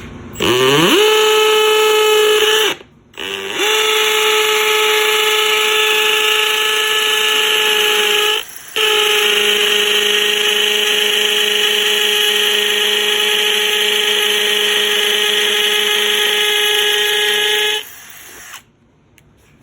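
Milwaukee M18 cordless hammer drill running at full speed with a steady motor whine. It spins up about half a second in, stops briefly near 3 s and again near 8.5 s, then runs on until it stops near the end.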